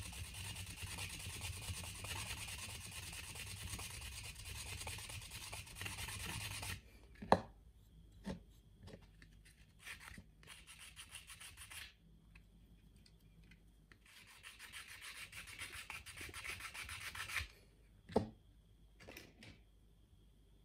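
Sandpaper rubbed back and forth against the rim of a round sanding pad, a steady scratchy rasp that stops about seven seconds in. Two sharp knocks follow, then short rubs. A second run of rubbing comes a few seconds before the end, followed by a couple more knocks.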